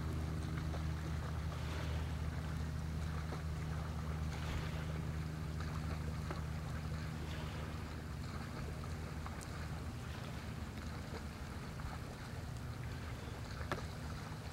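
Steady low hum of a distant motor over a faint background hiss, with one sharp click near the end.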